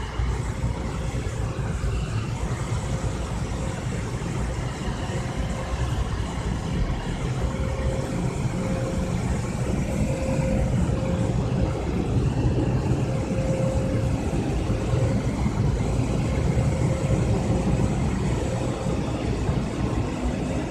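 Steady low rumble of a car idling and creeping forward into an automatic soft-touch car wash bay, heard from inside the cabin. A steady mid-pitched whine runs over it, and it grows a little louder partway through.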